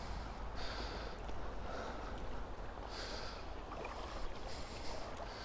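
River water swishing and sloshing around a wader's legs as he steps through the shallows, a swish every second or two over a steady low rumble.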